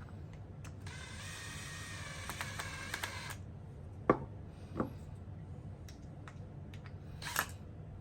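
Cordless drill runs for about two and a half seconds, driving a small metal screw into a wooden block, followed by a few sharp clicks and knocks.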